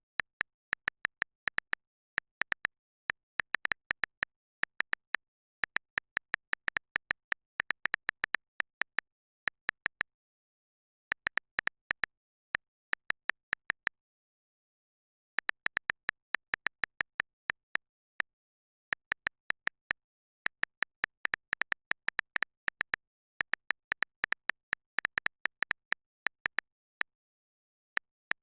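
Phone on-screen keyboard key-press clicks: short, sharp ticks in quick runs of typing, broken by pauses of complete silence.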